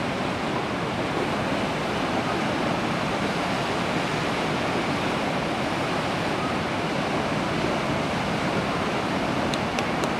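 Sea surf breaking on a rocky, boulder-strewn shore: a steady wash of waves.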